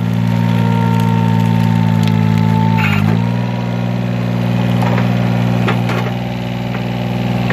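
Small engine on a homemade log splitter running steadily, its pitch dipping briefly about three seconds in as it takes the load, then recovering. The log cracks and splinters apart a few times around five to six seconds in.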